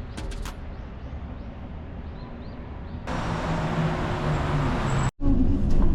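Steady low rumble of background noise, joined about three seconds in by a loud rushing hiss, with a brief sharp dropout near the end.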